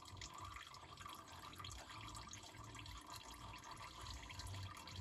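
Engine oil faintly trickling and dripping from the open oil filter housing of a diesel truck engine.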